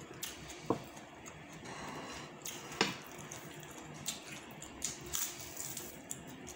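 Close wet chewing and mouth sounds of someone eating a fried moringa patty by hand, with a few sharp clicks scattered through.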